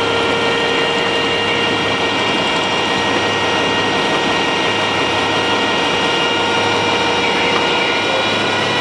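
An engine running steadily at a constant speed, a dense drone with a fixed whine through it.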